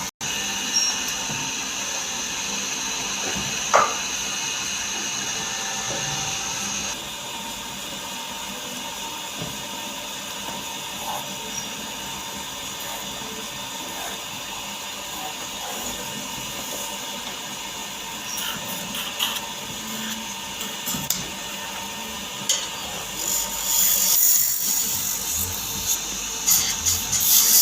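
A power tool running steadily while working wood. Its tone changes about seven seconds in, and louder rough scraping comes in near the end.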